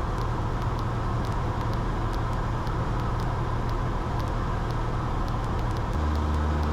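Cessna 172's piston engine and propeller droning steadily in the cockpit, heard from inside the cabin. Its low tone shifts abruptly to a steadier, stronger hum about six seconds in.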